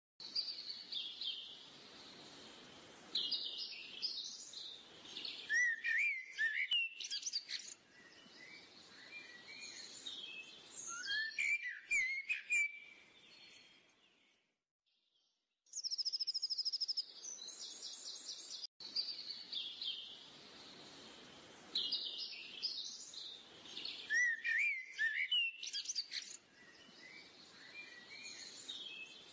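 Birdsong: several birds chirping and calling over a soft hiss. It fades out about halfway through, then starts again.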